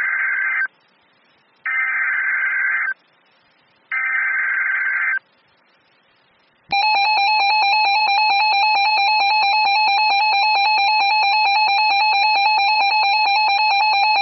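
NOAA Weather Radio Emergency Alert System header: three one-second bursts of SAME digital data about a second apart, then a steady alert attention tone from about seven seconds in. The alert tone opens a flash flood warning.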